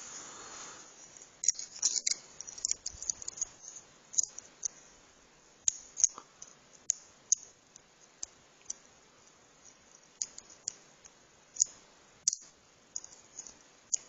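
Lock pick working the pins inside a Chubb padlock's keyway, making irregular small metallic clicks and ticks, sometimes in quick clusters.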